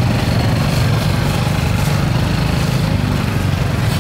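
A small engine running steadily, a continuous low hum that does not change.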